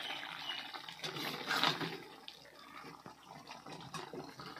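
Fish curry simmering uncovered in a kadhai over a low wood fire, bubbling and popping with many small ticks, while a flat metal spatula stirs through it. It is louder for about the first two seconds, then quieter.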